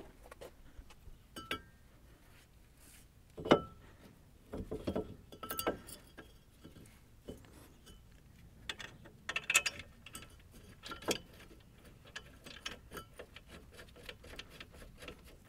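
Scattered metallic clicks and knocks as a front brake caliper bracket, fitted with new clips, is set over the brake rotor and fastened on. One sharp knock about three and a half seconds in is the loudest.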